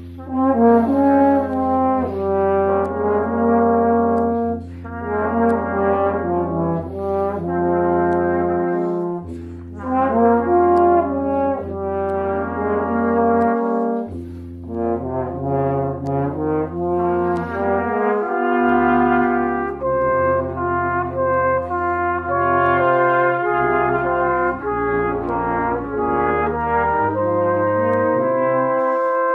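Brass quintet of flugelhorn, trumpet, French horn, trombone and tuba playing a slow, lyrical melody over sustained chords. The tuba holds long low notes, with brief breaks between phrases.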